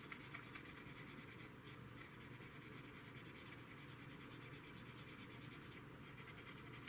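Faint rubbing of a cotton swab over a plastic model aircraft wing, wiping away excess panel-line wash with enamel thinner.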